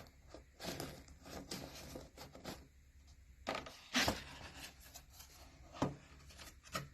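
Quiet, irregular clicks and rustles from the plastic gears of a spinning-gears board book being turned by hand and the book being handled, with the sharpest click about four seconds in.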